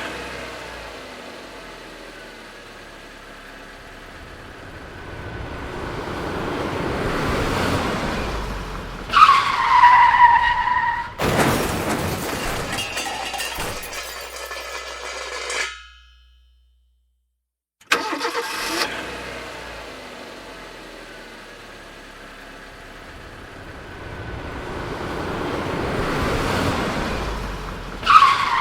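A car's engine and road noise grow louder as it approaches, then its tyres screech and it crashes: a sharp impact of metal and glass, with debris rattling and tinkling for about five seconds. After about two seconds of silence the approach builds again and ends in another tyre screech.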